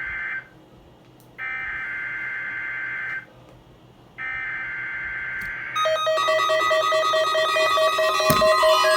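Emergency Alert System SAME header for a required weekly test: harsh, buzzy digital data bursts repeated three times, each under two seconds with about a second's pause between. Near six seconds in, a louder run of several electronic tones starts.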